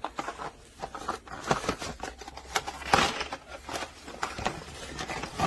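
A packet of coffee capsules being opened and handled: irregular rustling and clicking, with one louder clack about three seconds in.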